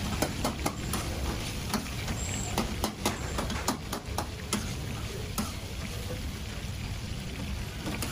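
Metal spatula and tongs clacking and scraping against iron karahi woks as chicken sizzles in oil, with a steady low rumble underneath. The clacks come thick and fast for about the first four and a half seconds, then thin out to a few.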